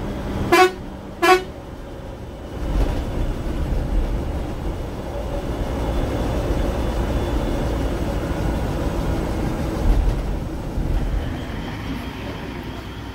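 Two short honks of the Ashok Leyland sleeper bus's horn, under a second apart, then the bus's diesel engine and tyres running steadily, heard from the driver's cabin.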